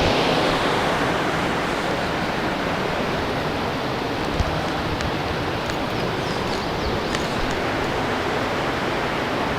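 Steady rush of creek water flowing, with one faint knock about four and a half seconds in.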